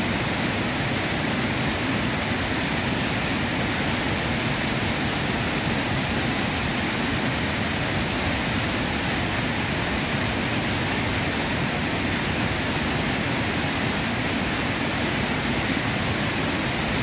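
River waterfall and rapids rushing steadily over rocks.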